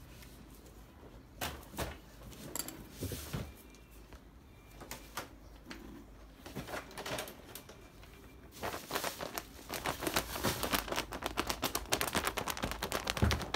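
Plastic parts of a laser toner cartridge being handled on a wooden table: a few scattered clicks and knocks, then, for about the last five seconds, a dense run of rapid clicking and crinkly rustling.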